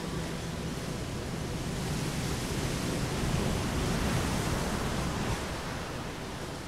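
Rough sea rushing and breaking along the side of a moving ship, heard as a steady rushing noise mixed with wind, swelling a little in the middle.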